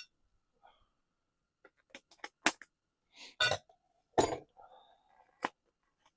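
A handful of irregular, short clicks and knocks with some rustling: handling sounds of camp cooking gear and food being got ready.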